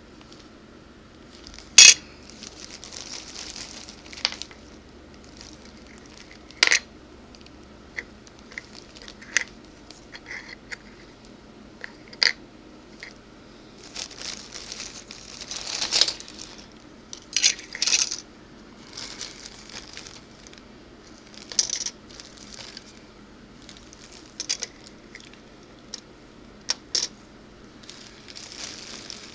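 Plastic model kit parts being handled and set down on a wooden table: a string of sharp clicks and taps, the loudest about two seconds in, with soft rustling between them.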